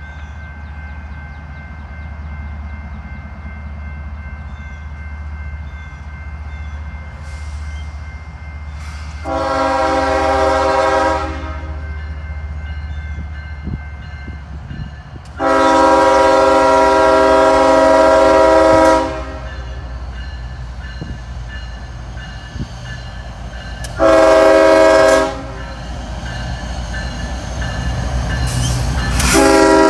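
Norfolk Southern GE ES44DC diesel locomotive's multi-chime air horn sounding the grade-crossing signal as the train approaches: two long blasts, a short one, then a final long blast starting near the end. Beneath the horn runs the steady low rumble of the locomotive.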